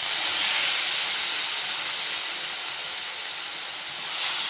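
Chopped tomatoes sizzling in hot coconut oil among sautéed onions in a pan: a loud, steady hiss that starts abruptly and swells briefly near the end as they are stirred with a wooden spatula.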